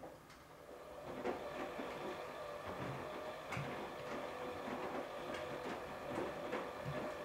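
An Electrolux EWF9042R7WB front-loading washing machine running with a light load. Its drum motor comes up over the first second into a steady whine, with irregular light knocks and clicks from the turning drum throughout.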